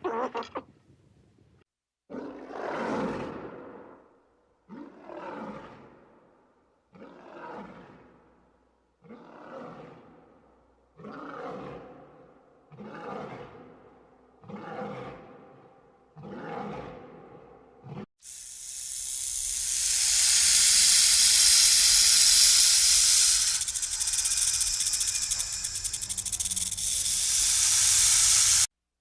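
A lion roaring: one long roar followed by seven shorter grunting roars about two seconds apart, each fainter than the one before. It gives way to about ten seconds of a loud, steady, high hissing sound that cuts off suddenly.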